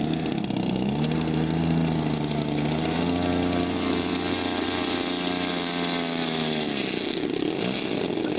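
Twin two-stroke gasoline engines of a giant-scale RC Grumman Albatross flying boat taxiing on water. The engines rise in pitch about a second in, hold steady, and drop back to a lower speed about seven seconds in.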